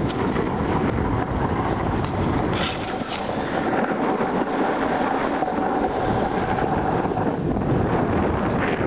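Wind buffeting the microphone of a camera carried by a skier moving downhill, mixed with skis hissing over packed snow.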